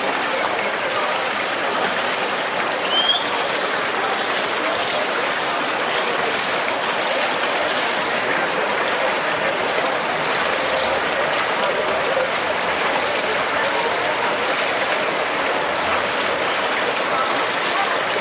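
Steady rushing, splashing water noise from swimmers in a pool during a freestyle race, with one brief high chirp about three seconds in.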